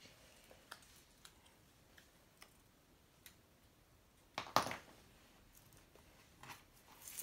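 Hands working on a paper poster craft: faint scattered clicks and light rustles of construction paper, with one louder rustle about four and a half seconds in.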